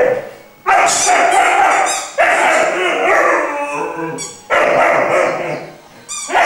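Three-month-old Irish wolfhound puppy 'singing': a run of long, drawn-out calls, about three in a row with short gaps between, each starting loud and fading away.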